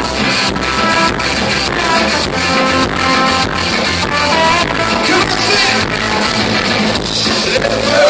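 Punk rock band playing live: distorted electric guitars, bass and a driving drum beat, with a singer's voice coming in over the band around the middle and near the end.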